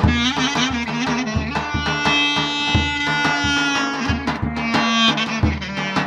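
Instrumental band music: a clarinet playing a melody with held and bending notes over a lower accompanying line, and a davul drum beating under it.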